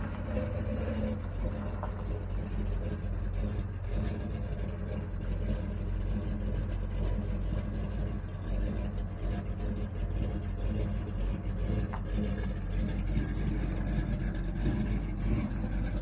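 Car engine running steadily at low speed, a low rumble.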